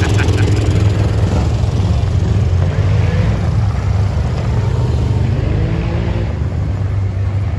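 Engines of ATVs and side-by-side utility vehicles running as the machines roll past one after another, a steady low engine hum with the pitch shifting as each one goes by.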